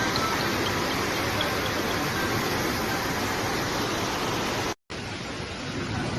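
Steady roar of rushing floodwater, cut short by a brief silence nearly five seconds in, then a similar but duller rush resumes.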